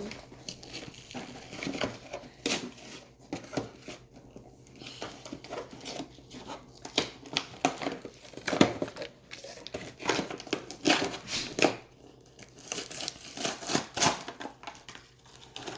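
Toy packaging being opened by hand: irregular crinkling, tearing and clicking, busiest near the end.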